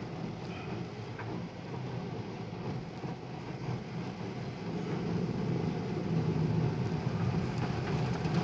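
Automatic car wash heard from inside the car's cabin: a steady muffled rumble of water spray and the wash brushes working over the car, growing louder about five seconds in.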